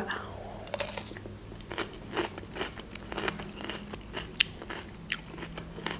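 Close-up eating sounds: a bite into a crisp piece of red vegetable, then wet chewing with a run of short crunchy clicks. The loudest crunch comes about a second in.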